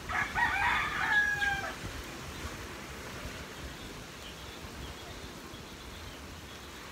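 A rooster crows once, for about a second and a half, the call ending on held notes.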